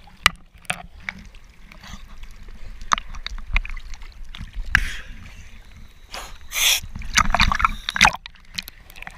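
Sea water sloshing and splashing against a waterproof action-camera housing bobbing at the surface, with many sharp clicks and knocks and a few louder splashes in the second half.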